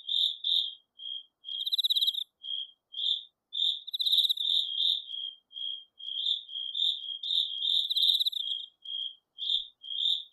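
A cricket chirping: short chirps repeated every fraction of a second, some running into quick trills, steady through the whole stretch.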